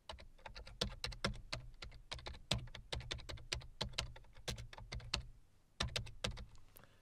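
Typing on a computer keyboard: a quick run of keystrokes for about five seconds, a short pause, then a few more keys near the end.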